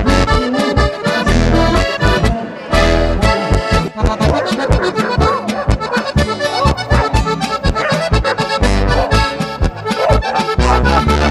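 Lively traditional folk music led by an accordion, with a steady low beat under quick-moving melody notes.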